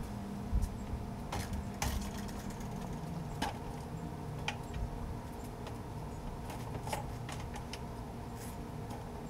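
Scattered clicks and knocks of a stepladder being carried and set up, over a steady low hum.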